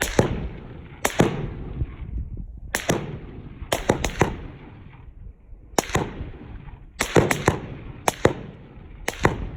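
Gunfire heard from about 100 yards downrange of the shooters: about a dozen sharp shots at uneven spacing, some in quick pairs, each followed by a rolling echo.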